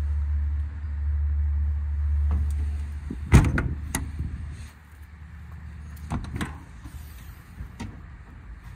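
Steel compartment door of an IMT Dominator service body shutting with a sharp bang about three and a half seconds in, followed by a few lighter clicks of a paddle latch as another compartment is opened. A low rumble runs under the first half and drops away after the bang.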